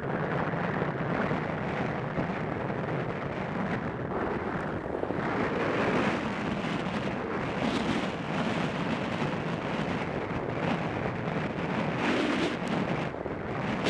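Wind buffeting the camera microphone at downhill speed, a steady rushing rumble, mixed with skis or a snowboard sliding over packed, groomed snow.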